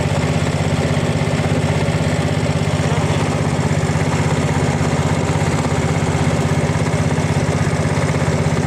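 Small engine running at a steady, unchanging speed, with a low even drone.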